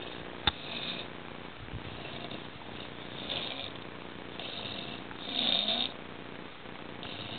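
A man snoring loudly in a drunken sleep, a snore on each breath, the loudest one a little past the middle. A single sharp click sounds about half a second in.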